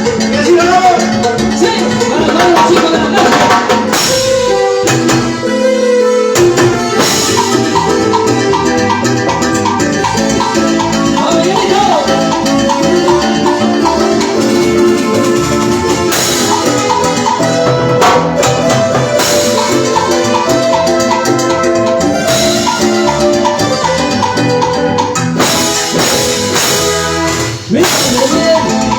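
Instrumental section of a Latin tropical dance track: a melody of short repeated notes over drums and percussion. The bass and drums drop out briefly about five seconds in, then come back.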